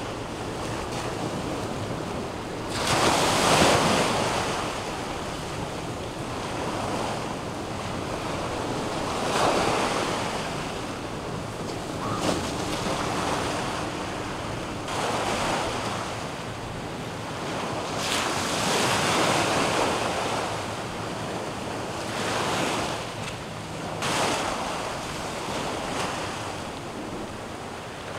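Surf washing in, swelling and falling away every few seconds, with wind buffeting the microphone.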